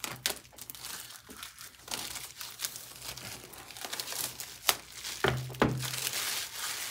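Clear plastic shrink wrap being pulled off a cardboard product box and crinkled in the hand: an irregular crackle of small clicks. Near the end come a sharp click and a couple of dull thuds as the box is handled on the table.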